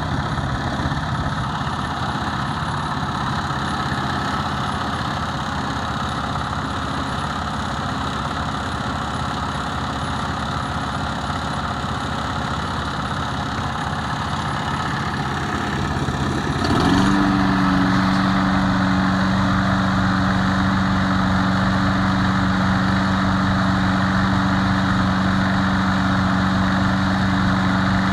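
Walk-behind lawn mower's small single-cylinder engine running just after a cold start, at first at a lower, uneven speed. About two-thirds of the way in it quickly rises to a higher, steady speed with a louder, even tone.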